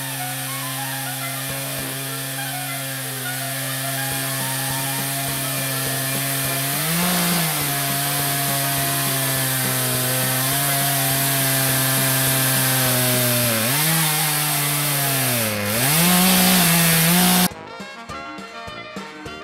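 A chainsaw runs at steady high speed as it rips lengthwise through a log in a home-made milling jig. Its pitch sags a few times as the chain loads up in the cut and then recovers. About three-quarters of the way through, the saw sound cuts off abruptly and upbeat music takes over.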